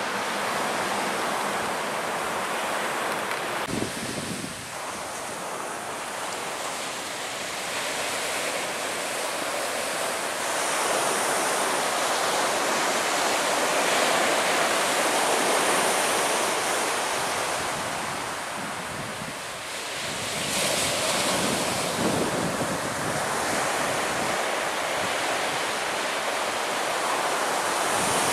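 Surf breaking on the beach, with wind buffeting the microphone: a steady rushing noise that swells and eases, with a brief dip about four seconds in.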